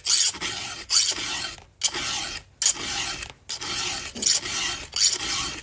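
Round chainsaw file rasping across a chain's cutter tooth in about seven even strokes, a little under a second each, sharpening the cutter until a burr comes up on its edge.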